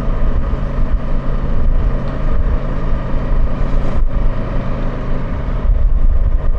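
Kawasaki Versys 650 parallel-twin engine running steadily while the motorcycle cruises along the road, holding an even note.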